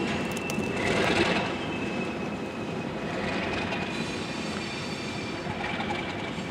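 ALCo RS32 diesel locomotive running as it moves slowly with a covered hopper, with a steady thin high whine over the engine noise and a brief louder rush about a second in.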